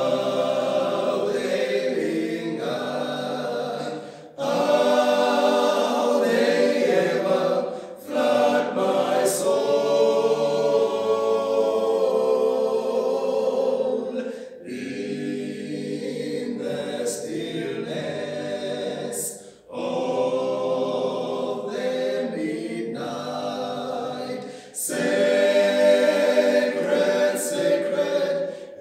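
Male a cappella group of six voices singing a hymn in harmony, holding sustained chords, with short breaks between phrases every four to six seconds.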